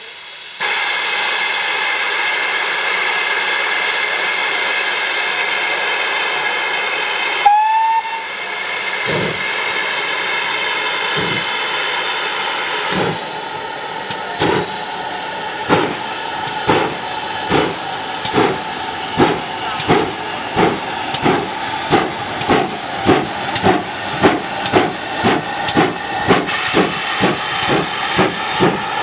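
Steam locomotive starting away with its train. First a loud, steady blast of escaping steam with a ringing tone, then a short whistle note, then the exhaust chuffs begin slowly about nine seconds in and quicken steadily as it gathers speed, with steam hissing throughout.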